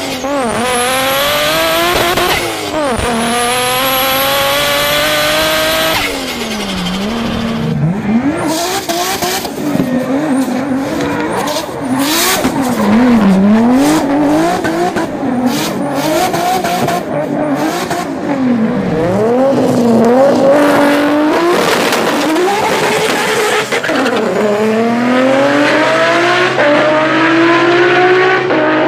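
Turbocharged car engines at full throttle, in three cut-together clips: first an engine pulling hard with its pitch climbing; then, about six seconds in, a drifting car whose revs bounce up and down with tyre squeal and sharp pops; then, near the end, a car accelerating off the line with its pitch rising steadily.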